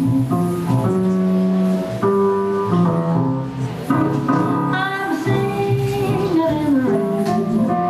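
Recorded music: a singing voice over instrumental backing, moving from note to note without a break.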